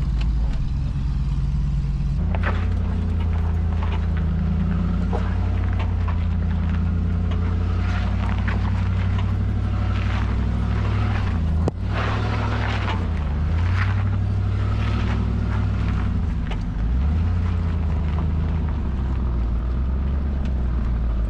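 1996 Land Rover Discovery 1's V8 engine running through its Magnaflow exhaust at low, working revs as the truck crawls a trail obstacle. The revs pick up about two seconds in and dip briefly twice in the second half, with occasional knocks and clatter on top.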